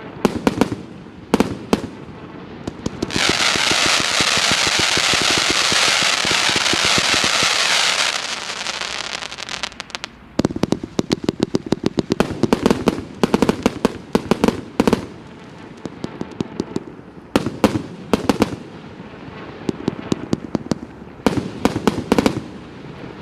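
A 149-shot mixed-calibre firework cake battery firing: sharp launches and bursts in quick succession. About three seconds in comes a steady, dense crackling stretch lasting some five seconds, followed by rapid volleys of shots.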